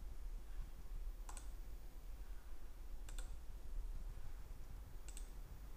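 Computer mouse clicks: three short clicks about two seconds apart, the later two each a quick press-and-release pair, over a faint low hum.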